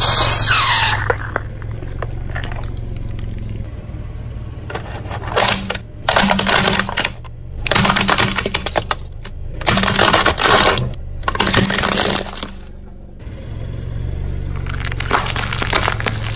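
A car tyre rolling over and crushing brittle objects, giving repeated bursts of crunching and cracking over the steady low hum of the car's engine running.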